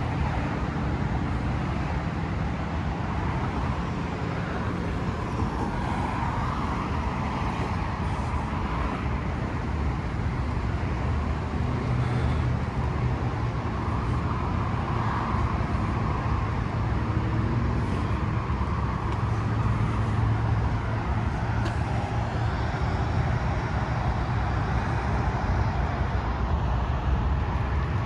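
Steady road traffic rumble, with a low engine hum rising and falling through the middle.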